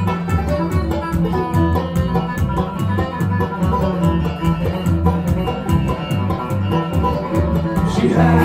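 Bluegrass band playing an instrumental break: fast banjo picking over strummed guitar and a bouncing bass line, with a steady beat.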